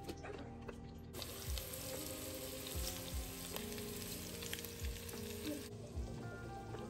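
Potato chunks frying in a hot pot, a steady sizzle that starts about a second in and cuts off suddenly near the end.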